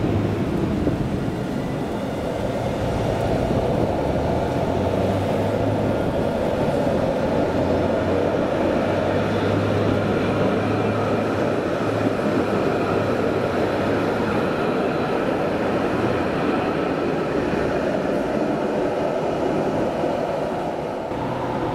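Alstom Citadis 402 tram approaching and passing close by, its wheels rumbling on the rails with a faint high whine over it, slightly louder around the middle as it goes past.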